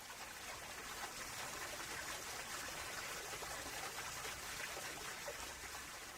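Steady rushing water of a river over rapids, faint and even, swelling gently at the start and easing off near the end.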